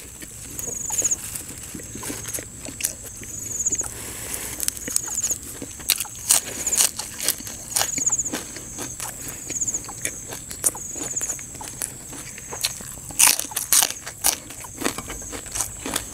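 Close-up chewing of raw beef koi khom with fresh herbs: sharp crunches and wet mouth clicks come irregularly throughout and are loudest about thirteen seconds in. A faint high chirp repeats about once a second in the background.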